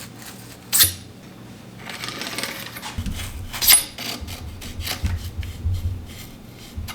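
Metal bike parts and tools being handled on a workbench: two sharp metallic clinks, one near the start and one about midway, with rustling and light knocks in between.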